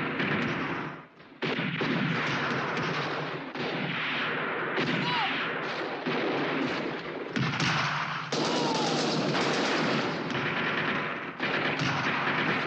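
Dense battle gunfire: machine guns and rifles firing in rapid, overlapping volleys. It cuts out briefly about a second in, and a couple of short falling whines sound through it.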